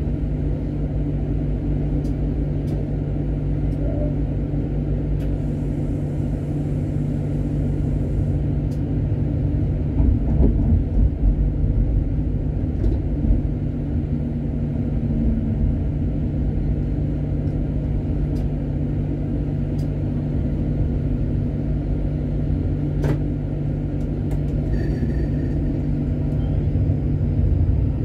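Tram running along the track: a steady low rumble of wheels on rails with a low, even hum underneath, and a cluster of louder knocks about ten seconds in.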